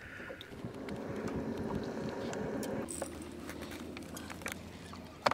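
A boat motor running steadily, with a few light clicks from fishing tackle.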